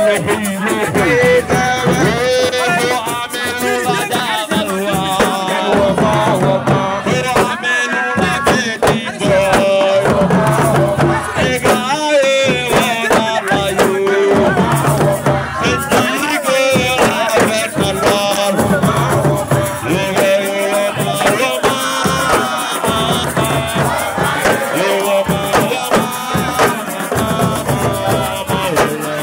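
Singing voices with shaken rattles and drums keeping a steady rhythm.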